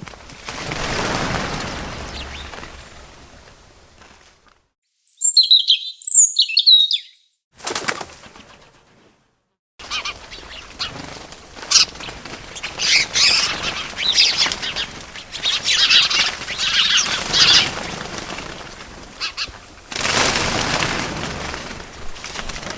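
Birds' wings flapping in whooshing rushes, with a few short, sharp, high chirps about five seconds in and a long stretch of high rustling and fluttering after that.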